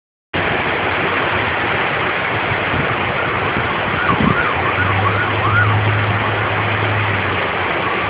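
Steady rushing noise of storm water in a flooded street. An emergency-vehicle siren wails up and down several times in the middle, and a low engine hum comes in during the second half.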